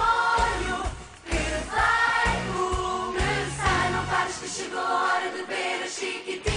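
Portuguese children's pop song, a group of voices singing together over a backing track, with a brief drop in the music about a second in.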